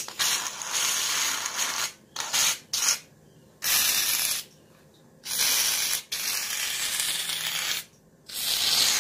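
Aerosol can of shaving cream spraying in about five bursts of hiss, each starting and stopping sharply, the longest lasting a couple of seconds, with short pauses between.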